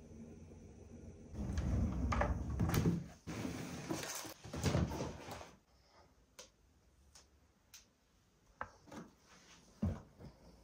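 A kitchen drawer sliding, its contents of plastic containers and small appliance parts rattling, for a few seconds; then scattered light taps and knocks as things are handled.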